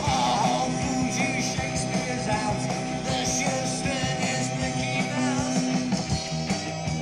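Psychedelic post-punk rock recording: electric guitar and bass with percussion. Wavering high notes weave over a steady, repeating bass line.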